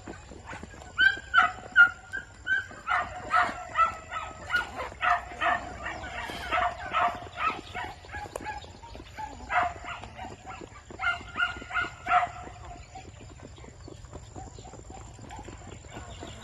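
Peafowl giving a long series of short, loud, honking calls, about two to three a second, in several runs that stop about twelve seconds in.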